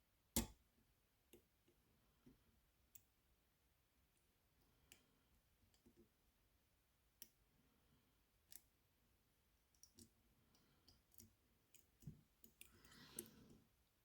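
Faint, irregular clicks and taps of a dimple pick and tensioner working the pins of a tiny Baton dimple camlock, a sharper click about half a second in, and a brief rustle near the end.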